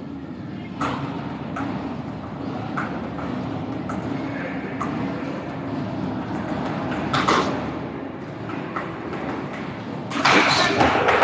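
Live flamenco show in a hall: sharp, irregular heel stamps ring out over a steady hum of music and room noise, then about ten seconds in a louder burst of crowd noise, like clapping and cheering, rises.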